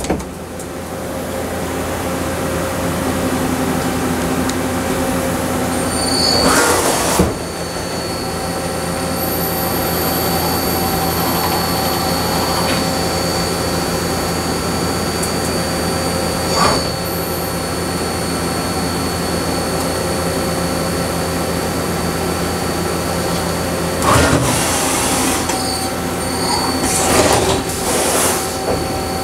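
Mazak Integrex CNC multi-tasking lathe running and machining an SW slip: the spinning spindle and chuck give a steady whine of several tones, one of them high-pitched. Short hissing bursts come about seven seconds in and twice near the end.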